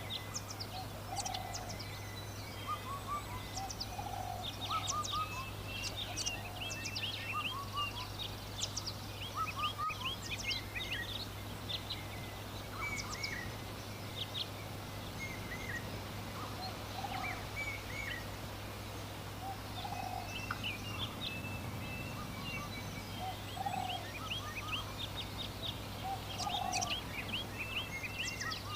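Small birds chirping and twittering in a dense, overlapping chorus, with a lower short call repeating every three seconds or so, over a steady low hum.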